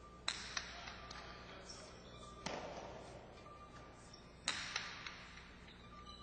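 Jai-alai pelota striking the fronton's walls and floor: several sharp hits a second or two apart, some in quick pairs, each ringing out in the large hall.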